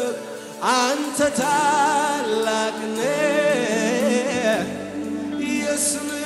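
Amharic gospel worship song performed live: a lead singer holding long notes with vibrato over sustained instrumental chords.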